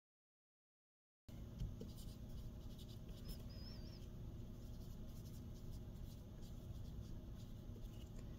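Dead silence for about a second, then a marker pen scratching short faint strokes on paper labels over a low steady hum.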